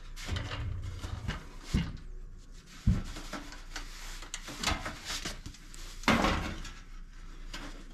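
Knocks and clunks from a large sheet-metal range hood light panel being tilted and turned over by hand, with scraping and handling noise between them. The loudest clunk comes about six seconds in.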